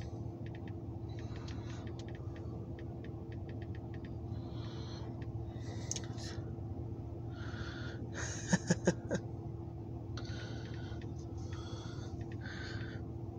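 Diesel locomotive idling with a steady low hum. Three sharp knocks come in quick succession about eight and a half seconds in.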